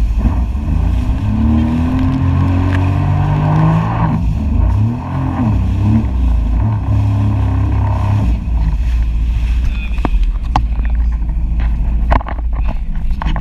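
Jet ski engine running and revving, its pitch rising and falling repeatedly for the first several seconds, then settling into a steadier run with several sharp knocks in the last few seconds.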